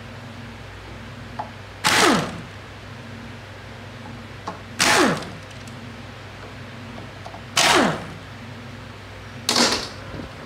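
A compressed-air tool fired four times in short bursts, each a loud hiss of about half a second with a whine that falls in pitch as it cuts off, while work goes on at the exposed valve body of a ZF 8HP automatic transmission.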